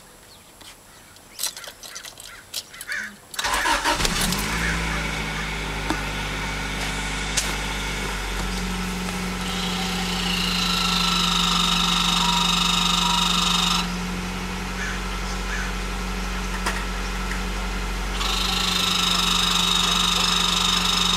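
A few faint clicks, then the 1993 Acura Integra's B18 four-cylinder engine starts about three seconds in and settles to a steady idle. Twice over the idle, a high whine comes on for about four seconds and stops suddenly: the ABS modulator running, which the owner confirmed was the source of the noise by pulling the ABS fuse.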